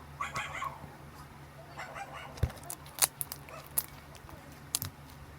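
Homemade slime being squished and poked, giving several sharp sticky pops and clicks. There are short animal calls in the background near the start.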